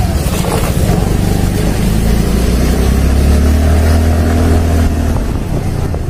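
Motorcycle engine running under the rider, its revs climbing through the middle and easing off about five seconds in.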